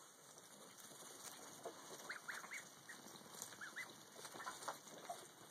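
Ducklings peeping faintly: scattered short, high calls, several a second.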